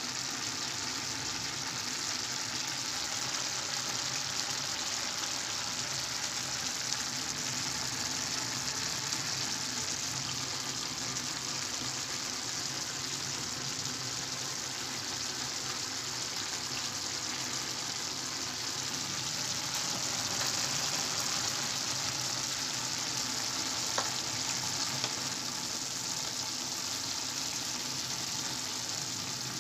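Pan of chana pulao (rice and chickpeas) sizzling steadily on the hob as its cooking water bubbles off, with a couple of light clicks late on.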